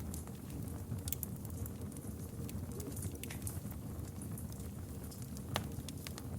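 Campfire burning, a steady low roar of flames with irregular crackles and pops of burning wood, one sharper pop about five and a half seconds in.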